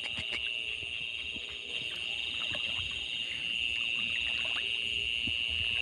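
A steady, high-pitched night chorus of calling frogs and insects from the flooded paddy, with faint small splashes in the water.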